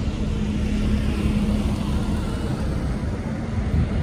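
Road traffic: a motor vehicle running over a low, steady rumble, with an engine hum that holds one pitch for about the first two seconds.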